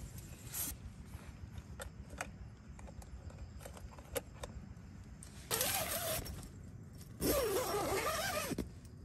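A few light clicks and knocks as a battery camping lantern is handled, then a zipper pulled in two long rasping strokes about a second apart, the second one longer.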